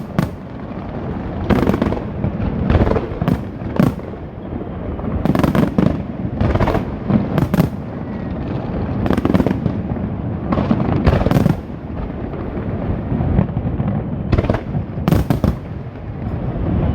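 Fireworks display: aerial shells bursting in an irregular string of loud bangs, about one every second or two, over a continuous rumble of further explosions.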